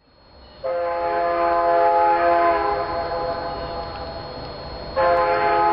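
Diesel locomotive air horn sounding a chord of several tones: a long blast beginning about half a second in that weakens, then a second blast starting about five seconds in.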